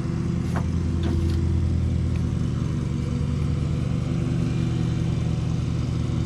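An engine or motor running steadily with an even low hum, plus a couple of faint clicks in the first second or so.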